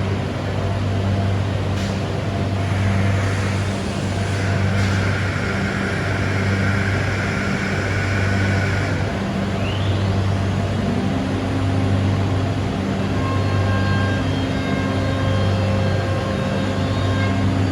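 Biesse Skill CNC machining centre running: a steady low machine hum, with a rushing band between about five and nine seconds in, a brief rising whine just after, and thin high whines later on.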